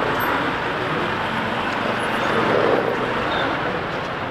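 Steady traffic noise of a dense pack of scooters and motorcycles crawling in a jam, heard from among them on a motorcycle: an even rushing hum in which no single engine stands out.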